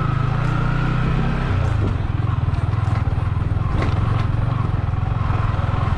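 Motorcycle engine running steadily as the bike rides a rough dirt trail, its note shifting about a second and a half in, with a few knocks and rattles from the bumpy ground.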